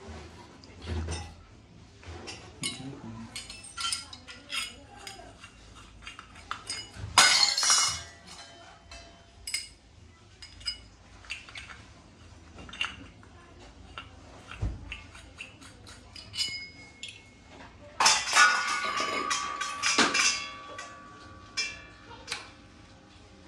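Brass kitchen utensils clinking and knocking together as they are handled and set down. There is a louder clatter about seven seconds in and a longer one around eighteen to twenty seconds, and after it the metal rings on briefly.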